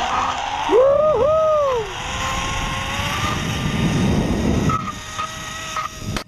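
Zip-line trolley pulleys running along a steel cable with a steady whine, under wind rushing past the GoPro's microphone. About a second in there is a brief two-part whoop that rises and falls.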